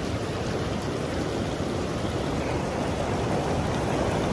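Shallow, rocky mountain river rushing steadily over stones.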